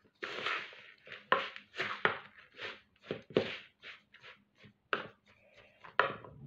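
Spatula scraping and stirring through grated pumpkin, cornmeal and coconut flakes in a plastic mixing bowl, in repeated irregular strokes a few times a second.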